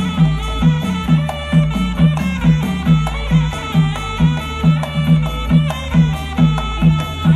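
Southern Thai Nora (Manora) dance music. A steady drum beat falls about twice a second, with a melody line over it.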